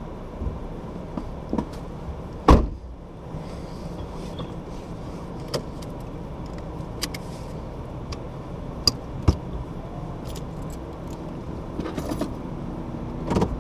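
Vehicle engine idling while stopped, a steady low hum, with scattered clicks and knocks. The loudest knock comes about two and a half seconds in, two sharper clicks come near nine seconds, and a cluster of rattles comes near the end.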